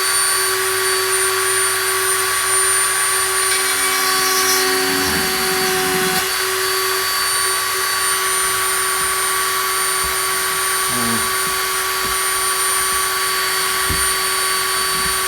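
Dremel rotary tool with a small grinding bit running at a steady high speed, a constant whine over a hiss, as it grinds away plastic keyboard rivets.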